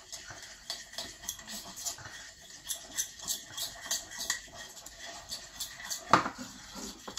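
Metal spoon stirring and scraping tinted icing against a porcelain plate, a quick run of small clinks and scrapes, as red and yellow food colouring are mixed in to make orange icing. One louder knock about six seconds in.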